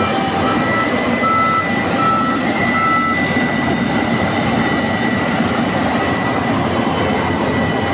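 Combine harvester running steadily under load, with a steady high whine over the engine and threshing noise. A reversing alarm beeps evenly, a little more than once a second, and stops about three seconds in.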